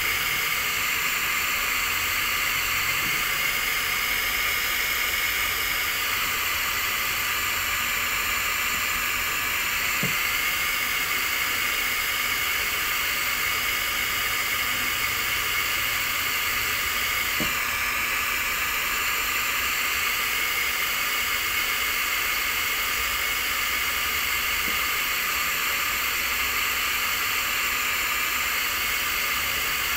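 Handheld hot-air plastic welding gun blowing steadily: a constant hiss with a faint steady whine in it.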